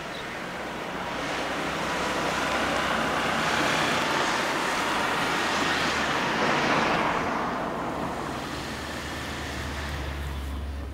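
Road traffic noise: an even rushing sound that swells over the first few seconds and eases off in the second half, as of a vehicle passing.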